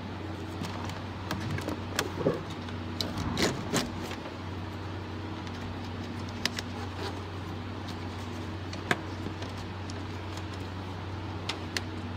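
Light clicks and rustles of a wiring harness and switch parts being handled and fitted at a truck's dashboard, a cluster of them about two to four seconds in and a few sharp single clicks later, over a steady low hum.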